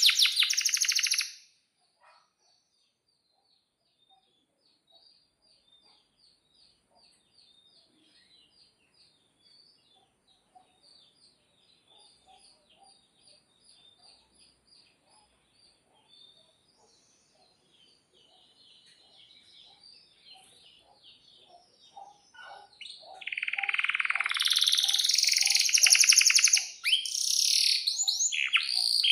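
Male domestic canary singing. A loud, rapid high trill cuts off about a second and a half in and is followed by a long stretch of faint, soft twittering. Near the end, loud song with fast trills and rolls returns.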